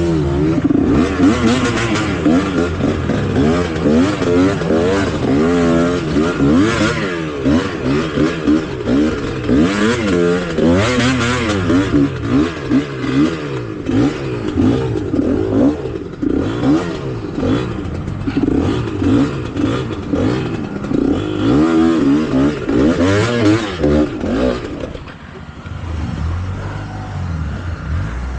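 Trail motorcycle engine revved hard up and down over and over, the pitch rising and falling every second or so, as the bike struggles on a steep loose climb without making it. The revving eases off about 25 seconds in.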